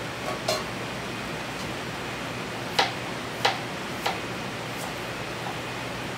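Steady rushing kitchen background noise, with a few sharp clacks of kitchen items being handled. The loudest clack comes a little under three seconds in, with another about half a second later.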